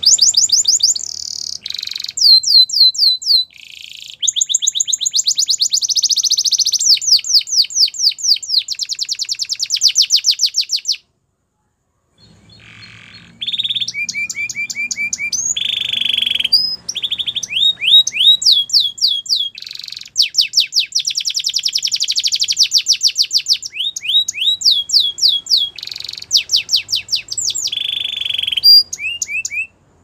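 Domestic canary singing Russian-style song: a long run of fast trills, each made of quick repeated whistled notes, mixed with a few harsher, buzzier phrases. The song breaks off for about a second near the middle, then carries on.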